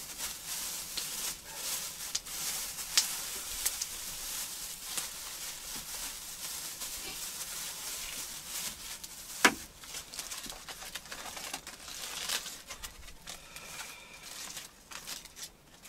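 Wood campfire crackling, with a steady hiss, scattered small snaps and a few sharp pops, the loudest about nine and a half seconds in. Light crinkling rustles run through it.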